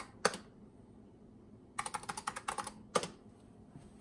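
Typing on a Tandy 102 portable computer's keyboard: one keystroke just after the start, then a quick run of keystrokes near the middle, ending in a single harder keystroke about three seconds in.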